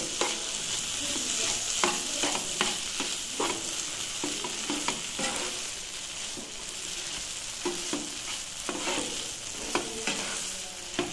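A spatula stirring and scraping a mashed banana-stem mixture in a nonstick frying pan, in irregular strokes with occasional taps against the pan. Under it runs a steady sizzle of frying.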